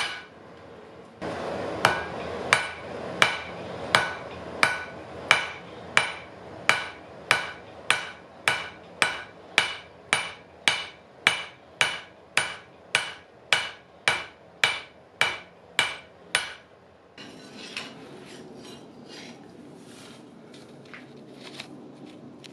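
Hand hammer forging a red-hot wrought iron and steel knife blade on an anvil: steady blows, about three every two seconds, each with a short metallic ring. The blows stop about three-quarters of the way through, leaving only a few faint knocks.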